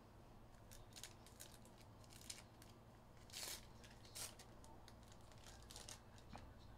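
Faint tearing and crinkling of trading-card packaging as a hobby box of hockey cards is opened, in a string of short rustles with the two loudest about three and a half and four seconds in.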